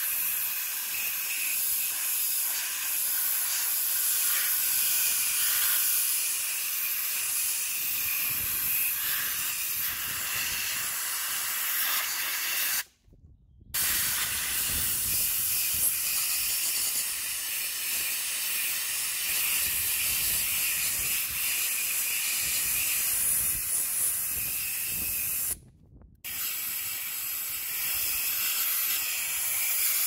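Blue-Point gravity-fed blast gun hissing steadily as compressed air drives abrasive into the combustion chamber of a Ducati 900SS aluminium cylinder head. The hiss stops briefly twice, a little before halfway and near the end, then starts again.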